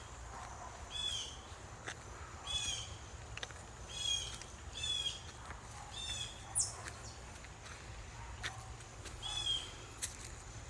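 High, raspy calls of a bird taken for a young hawk, each call falling in pitch, repeated six times at uneven intervals of one to three seconds.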